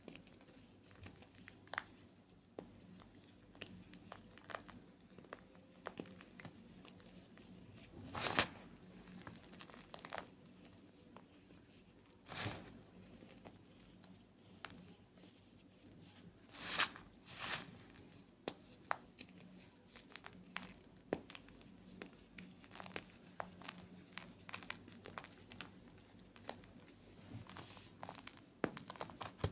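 White gym chalk being crushed by hand: scattered small crackles and crunches, with a few louder crunches about 8, 12 and 17 seconds in.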